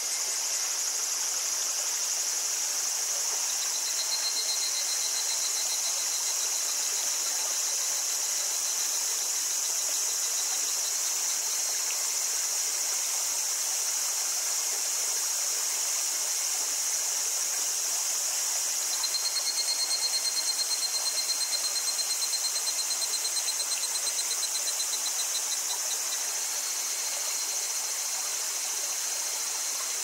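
A small stream babbling steadily under a high, steady chorus of cicadas. A single cicada's pulsing call sounds twice over it: faintly from about four seconds in, then louder for several seconds past the middle.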